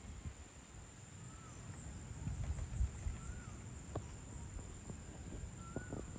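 Evening outdoor ambience: a steady, high-pitched insect drone runs throughout, with a few short bird chirps scattered across it. Low rumbling and a few soft knocks sit underneath.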